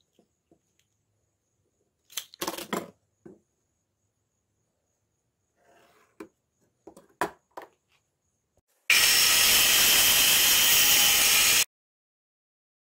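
Light knocks and clicks of a tape measure, steel rule and pen handled on a wooden workbench, then a loud, steady power-tool noise for nearly three seconds that starts and cuts off abruptly.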